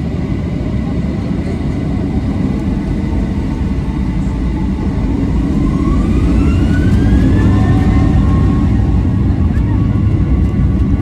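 Boeing 737-800's CFM56-7B jet engines: a steady heavy rumble with a whine that rises in pitch between about five and eight seconds in, as the engines spool up to higher thrust.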